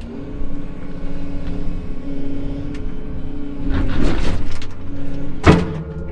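Volvo excavator's diesel engine running steadily, heard from inside the cab. About four seconds in, branches crackle and scrape, and near the end a sharp crack sounds as the branches of a tree pulled toward the machine strike the cab.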